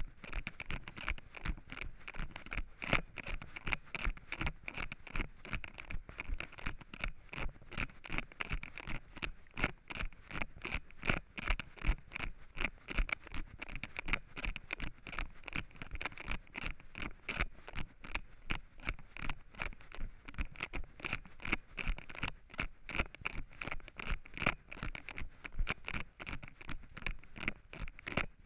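Running footsteps crunching and scuffing through dry fallen leaves on a forest trail, in a quick steady rhythm of about three steps a second.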